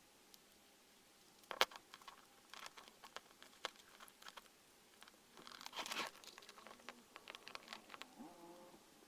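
Small clicks, taps and crinkling from small parts being handled at close range. There is one sharp click about a second and a half in and a dense run of clicks around six seconds, then a short pitched squeak near the end.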